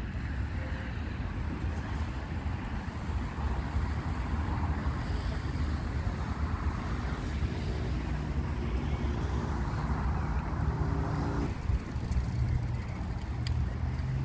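Wind buffeting the microphone, a steady low rumble with a hiss over it, joined about halfway through by a faint droning motor hum that cuts off abruptly a few seconds before the end.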